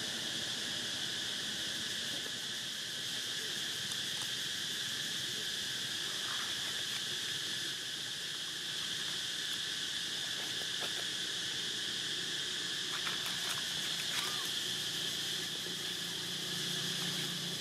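Steady insect chorus: a continuous high buzz holding at one pitch, with a few faint short sounds about thirteen seconds in.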